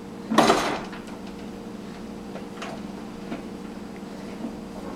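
Kitchenware clattering as a toddler pulls it out of the dishwasher: one loud clatter about half a second in, then a few light clinks, over a steady hum.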